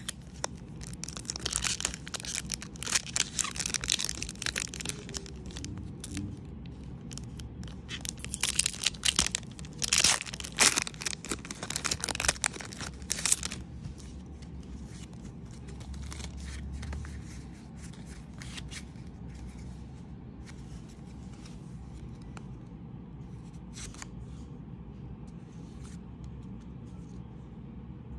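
Pokémon card booster-pack wrapper being torn open and crinkled in bursts of crackling for the first half. After that it is quieter, with faint clicks and slides as the cards are handled.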